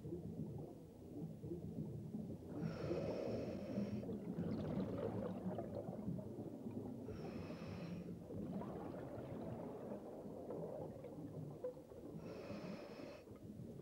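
Scuba diver breathing through a regulator: three inhalations, each about a second long and some four to five seconds apart, with a low bubbling of exhaled air in between.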